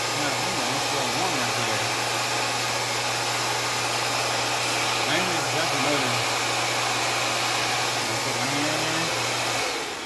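Kenmore canister vacuum cleaner running with a steady whirring hiss and hum, which cuts off near the end.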